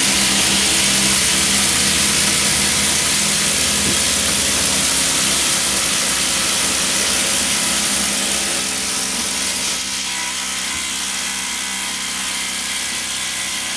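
Makita 40V cordless impact drivers and impact wrenches hammering continuously as they drive large 7 mm stainless timber screws into timber, the impact mechanisms working under heavy load nearly the whole way. The racket gets a little quieter from about eight seconds in as some of the tools finish their screws.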